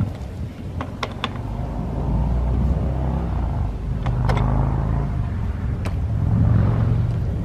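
Steady low rumble, with a few sharp metallic clicks as the valve handles of a brass sight-feed steam lubricator are worked by hand.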